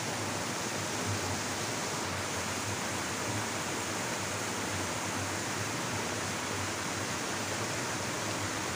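Water rushing steadily as it pours in a small cascade into a muddy stream.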